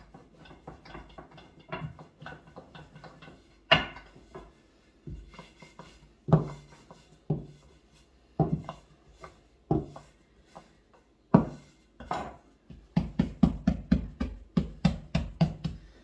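Wooden rolling pin rolling out dough on a board: irregular knocks and thumps, then a quick run of knocks about four a second near the end.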